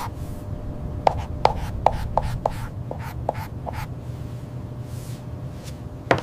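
Stylus tapping and scratching on a tablet screen: a run of light taps, about three a second, through the first half, with a few sharper clicks near the start and end, over a low steady hum.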